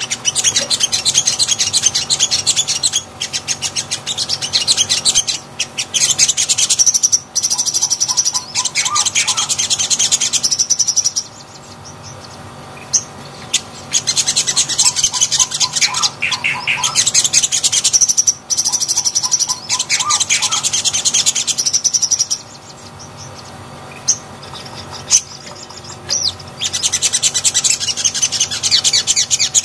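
Sogon (sogok ontong) singing long runs of rapid, high-pitched chattering song, broken by two pauses of a few seconds.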